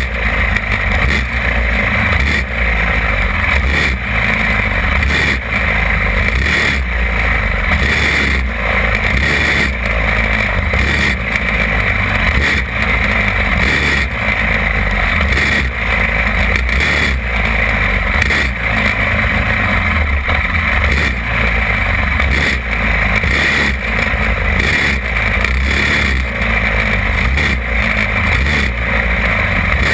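Small go-kart engine running hard under the onboard microphone, its sound swelling and dipping in a regular cycle about every second and a half, with other karts' engines mixed in.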